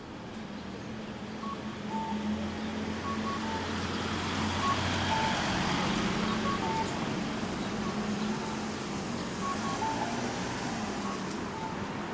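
Audible pedestrian crossing signal repeating a two-note electronic chime, short high notes followed by a lower note, over passing road traffic that gets louder about two seconds in.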